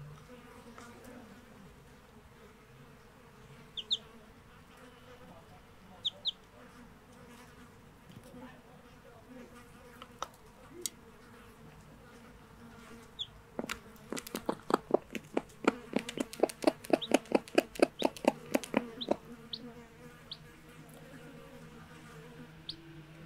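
A faint steady buzzing hum with brief high peeps from young chicks now and then. About halfway through comes a rapid run of sharp taps, roughly five a second, lasting some five seconds and louder than anything else.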